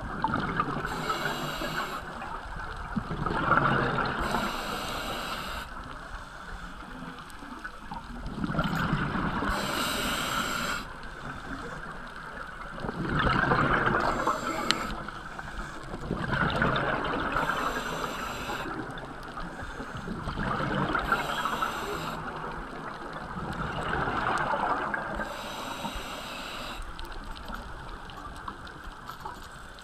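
Scuba diver breathing through a regulator underwater: a hiss with each inhale, then a gurgling rush of exhaled bubbles, repeating every three to four seconds.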